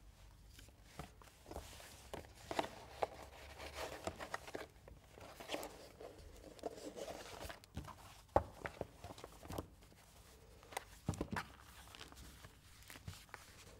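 Cotton fabric book cover rustling and sliding as a hardback book is worked into its inner pockets, with scattered soft clicks and a few sharper knocks of the book being handled.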